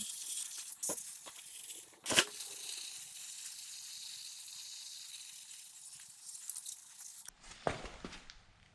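Sprayer hissing out a steady jet of warm water, rinsing degreaser off a chainsaw part, with a couple of sharp knocks early on; the spray cuts off about seven seconds in.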